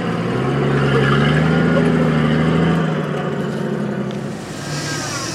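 Ford F-150 pickup's engine revving up under load as the truck climbs over a rock ledge, then easing off about three seconds in.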